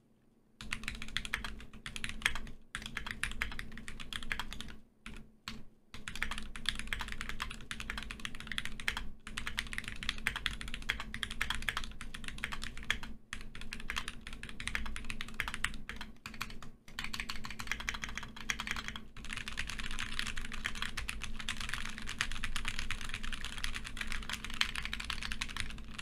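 Steady fast typing on a Keychron Q5 aluminium-cased mechanical keyboard: a dense stream of key clacks, broken by a few short pauses.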